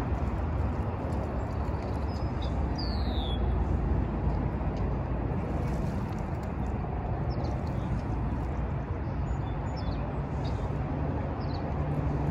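Steady low outdoor background rumble with a bird's short falling call about three seconds in and a few faint chirps later. A low steady hum comes in near the end.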